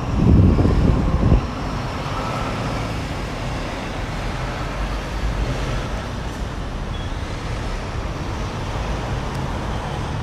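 City street traffic: a steady wash of passing cars and other vehicles, with a louder low surge of noise in the first second and a half.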